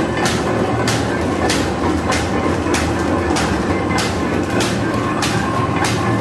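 Paper bag making machine running, a steady mechanical hum with a regular sharp clack about three times every two seconds as it cycles.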